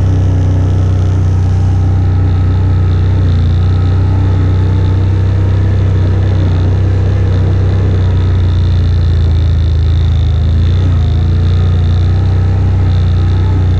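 AODES 1000 ATV's V-twin engine running at a steady speed while riding, a constant low drone with no revving.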